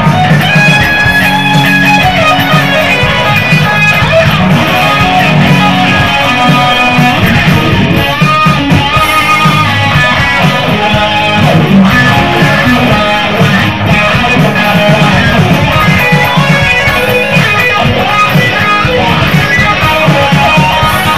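Electric guitar played through a Marshall amplifier stack: an original instrumental rock piece in a shredding style, playing continuously and loud.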